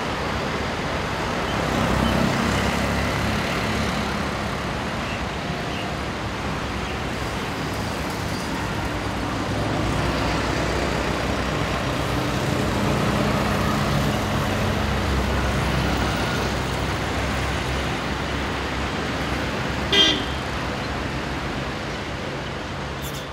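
Road traffic ambience: a steady drone of passing motor vehicles with occasional horn toots, and a short sharp sound about twenty seconds in.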